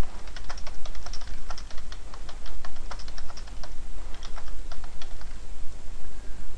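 Computer keyboard typing: quick, irregular key clicks as a line of text is typed, over a steady low hum.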